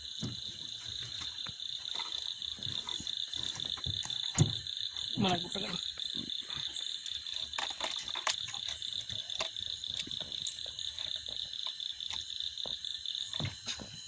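Night chorus of frogs croaking, with insects keeping up a steady high trill. Scattered clicks and knocks come from the cast net being gathered up by hand.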